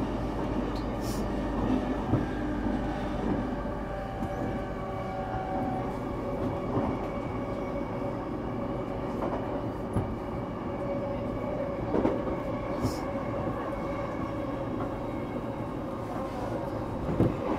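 Running sound inside a JR East E233 series electric commuter train at speed: a steady hum of motors and wheels on rail, with a few sharp knocks over rail joints.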